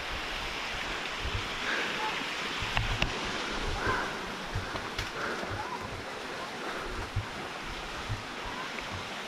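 Steady rushing of water from a waterfall and rocky creek, with wind thumping on the microphone and a couple of faint clicks.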